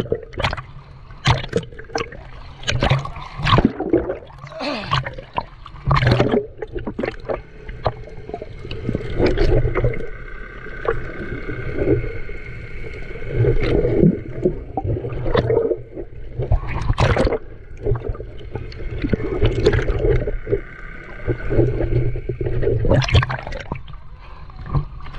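Water gurgling and sloshing, muffled as heard through a GoPro's waterproof housing while snorkeling, with frequent short splashes and a low rumble. A steady high hum joins for much of the middle.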